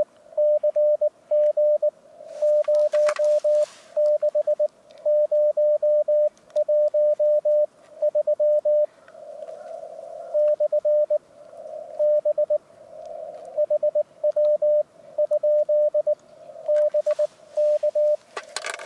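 Morse code from an IC-705 amateur radio transceiver on 7 MHz CW: a steady tone of about 600 Hz keyed in quick dots and dashes, grouped into characters and words, with band hiss around the tone between groups. A short rush of hiss comes twice, a few seconds in and near the end.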